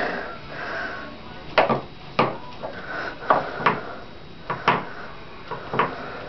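A series of sharp knocks and clicks, about ten at uneven spacing, over a faint background.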